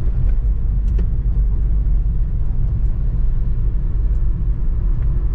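Steady low rumble of a car on the move: engine and road noise while driving.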